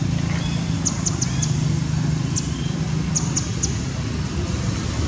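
A low steady rumble, with short high chirps repeating above it in small groups of two or three.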